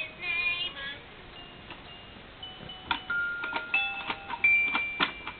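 A high, wavering voice-like sound in the first second. Then, from about halfway through, a run of sharp clicks, each followed by a clear ringing note at several different pitches, like a small musical toy being struck or pressed.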